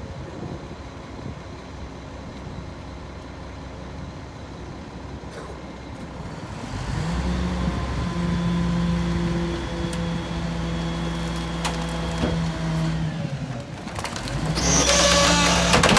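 Mack MR garbage truck's diesel engine idling, then speeding up and holding steady about seven seconds in as the Leach rear-loader packer is run. Near the end comes loud cracking and splintering as bulky wooden items are crushed in the hopper.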